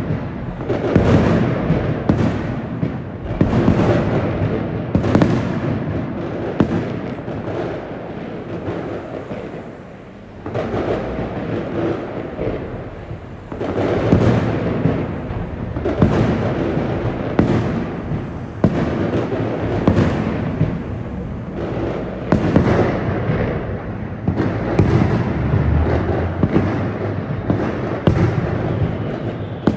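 Fireworks display: aerial shells bursting in quick succession, a bang every second or so, each with a rumbling tail, easing off briefly about ten seconds in before picking up again.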